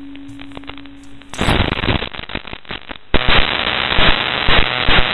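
A held music note fades out, then about a second and a half in crackling radio static breaks in and turns into a steady, loud hiss with a hum from about three seconds on: the analogue FPV video receiver has lost the drone's signal.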